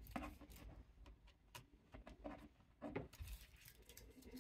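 Faint, irregular clicks and light knocks of small parts of a model railway turnout and its lantern being handled.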